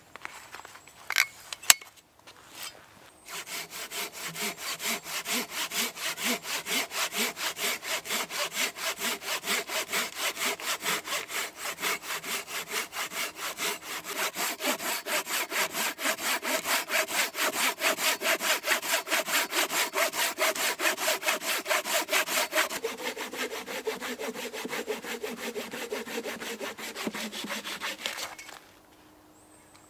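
Hand saw cutting through a log in quick, even back-and-forth strokes that start a few seconds in and stop shortly before the end; the strokes sound deeper for the last few seconds. A couple of sharp knocks come before the sawing.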